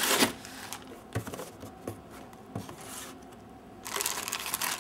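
Cardboard retail box and its packing being handled: a rustle of the box flaps at the start, light knocks and rubs of cardboard and foam, then plastic wrapping crinkling near the end.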